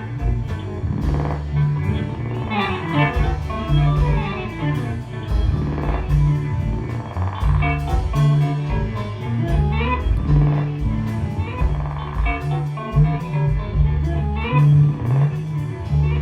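Live instrumental band jam with a steady beat: a walking bass line under guitar and drums with cymbal strokes.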